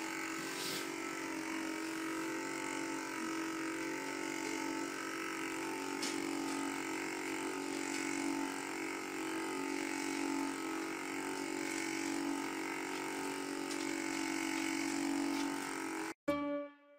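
Handheld electric massager's motor running with a steady, even hum as it is pressed against a cat's back. It cuts off abruptly near the end.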